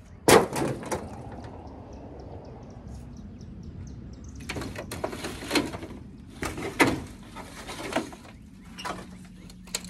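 Salvaged camper side-wall panels being shifted out of a pile, clattering and scraping. There is a loud bang just after the start, then two bouts of scraping with sharp knocks about halfway through and again a little later.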